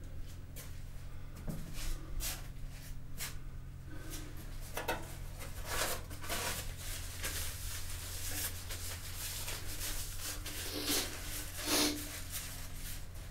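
Paper towel handling in a small tiled room: a series of short rustles, scrapes and soft knocks as a towel is pulled from a wall dispenser and rubbed over the face, the loudest near the end, over a steady low hum.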